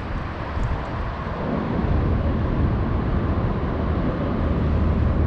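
Steady low rumble of road traffic, with no clear clicks or distinct events.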